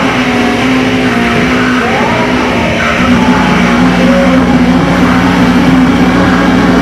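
Loud, dense noise music: low droning tones that hold and then shift in pitch in steps, under a thick wash of noise, with short gliding tones higher up. It grows a little louder about three seconds in.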